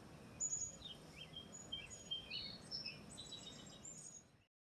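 Songbirds chirping and calling in short, high notes over a faint low background noise; the sound cuts off suddenly near the end.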